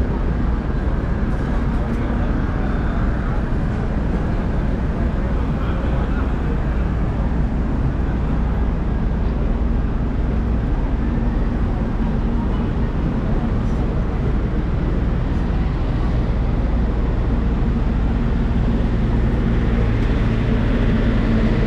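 Busy city street ambience: a steady rumble of traffic with a low engine hum, and crowd voices mixed in.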